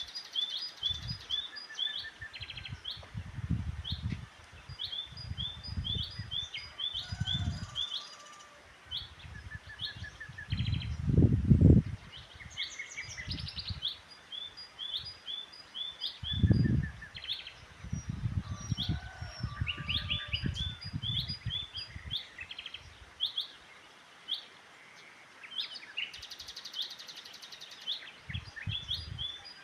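Small birds chirping and twittering, with many short down-slurred chirps in quick series, over irregular low rumbles that come and go and are loudest about eleven seconds in and again about sixteen seconds in.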